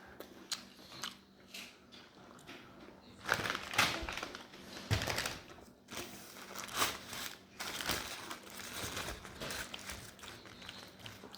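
Someone biting into and chewing a thin, crispy potato wedge: irregular crunches and crackles.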